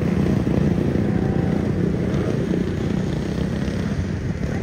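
Several 250cc outlaw dirt kart engines running together as a pack, a steady loud engine note with no sharp revving.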